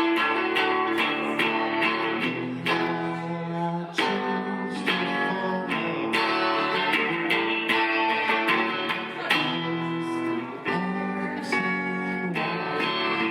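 Guitar strummed in a steady rhythm, moving through chord changes every couple of seconds.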